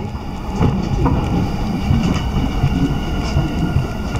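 Electric commuter train running at speed, heard from inside the carriage: a steady rumble of wheels on rails with a few short clicks.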